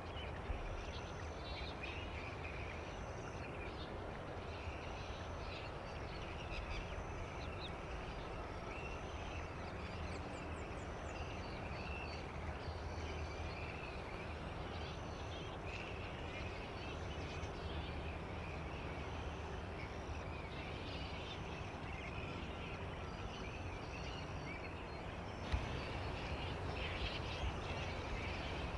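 A colony of flying foxes (fruit bats) roosting in the trees, keeping up a constant chatter of short, harsh squabbling calls over a steady low background rumble.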